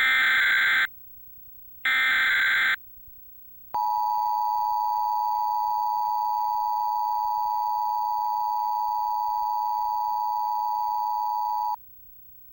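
Emergency Alert System tones. Two short bursts of SAME header data about a second apart are followed by the steady two-tone EAS attention signal (853 and 960 Hz), held for about eight seconds before it cuts off. The tones signal that an urgent alert, here a tornado warning, is about to be read.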